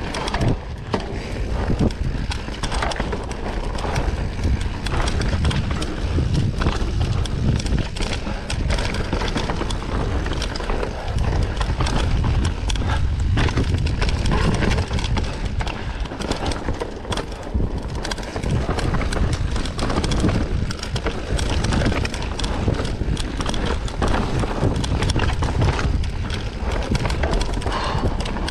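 Mountain bike riding fast down a dirt singletrack: a steady, irregular clatter and rattle of the tyres, frame and suspension over rocks and roots, over a heavy low rumble.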